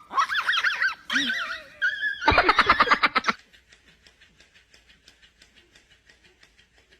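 An animal's wavering, high-pitched calls for about two seconds, then a loud rapid rattling call lasting about a second, followed by faint quick ticking.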